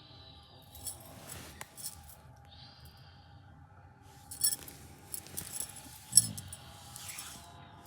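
Small metal pieces jingling and clinking in several short bursts, the loudest about six seconds in.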